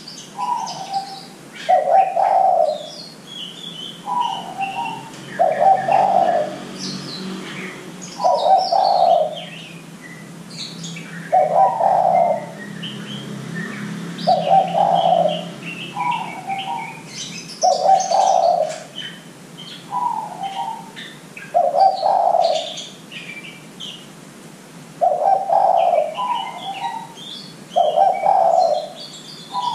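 Derkuku (spotted dove) cooing over and over, one low phrase about every two to three seconds, some phrases with a short higher note. This is the kind of song used as a lure (pancingan) to get young derkuku singing. Small birds chirp at a much higher pitch in the background.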